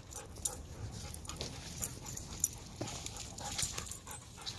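Dogs panting, tired after running and play, with scattered short clicks.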